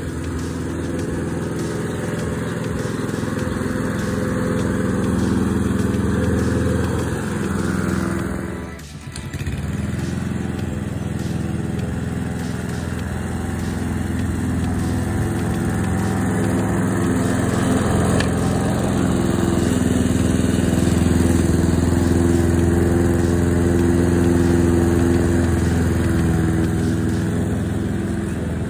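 Mountfield SP535 HW self-propelled petrol lawn mower with a Honda engine, running steadily while cutting grass. Its sound dips briefly about nine seconds in.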